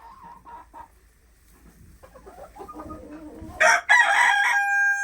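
Chickens clucking softly, then a rooster crowing loudly about three and a half seconds in, its call ending in one long held note.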